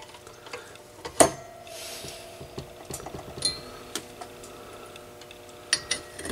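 A few sharp clicks and light metallic knocks from the tube and amplifier chassis being handled. The loudest comes about a second in and rings briefly, with smaller clicks after it.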